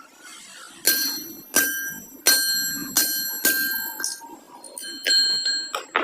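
A metal part struck about eight times in uneven succession, each blow ringing on with a clear bell-like tone.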